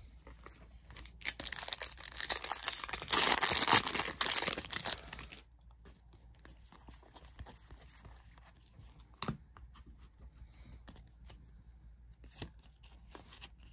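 Trading-card foil pack wrapper being torn open and crinkled for about four seconds, then quiet sounds of the cards being slid out and handled, with a single sharp tap about nine seconds in.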